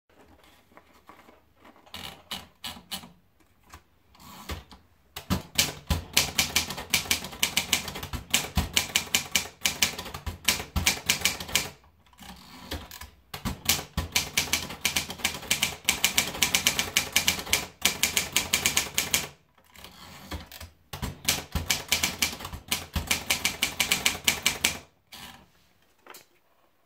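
Triumph Norm 6 manual typewriter being typed on. A few separate keystrokes come first, then three long runs of rapid key strikes with short pauses between them.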